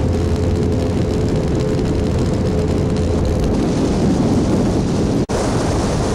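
Motorboat engine running steadily under way, with wind and water noise over it. The sound drops out for an instant about five seconds in.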